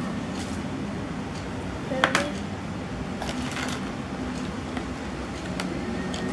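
Plastic toy molds and small toy spoons clicking and clattering against a clear plastic tray as they are picked up and set down, with one louder knock about two seconds in. A steady low hum runs underneath.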